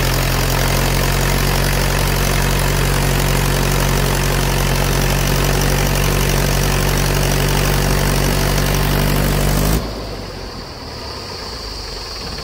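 Mahindra 575 DI tractor's four-cylinder diesel engine running steadily at full throttle while driving a rotavator in second-low gear, holding its speed without bogging down under the load. About ten seconds in, the loud engine sound cuts off abruptly to a much quieter, thinner one.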